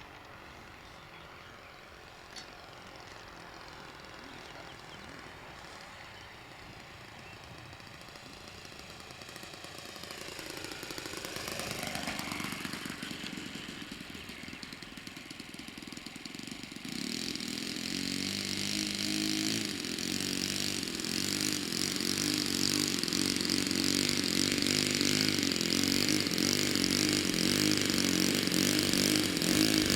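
Saito 62 four-stroke glow engine on a Seagull Spacewalker model aeroplane in flight, with its 12x6 propeller. It is faint at first and swells as it passes about twelve seconds in, the pitch sweeping up and down. It then runs closer and steadily louder through the second half.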